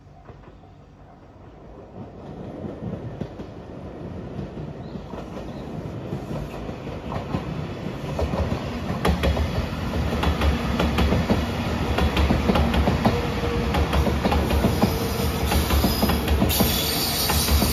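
JR Shikoku 8000 series electric limited express train approaching and passing close by, growing steadily louder, with a deep rumble and its wheels clattering over the rail joints.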